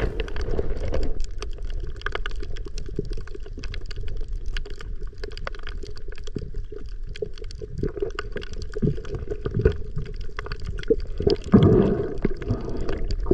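Underwater sound picked up by a submerged camera on a reef: a muffled low rush of sea water with many scattered crackles and clicks, and a louder gurgling surge near the end.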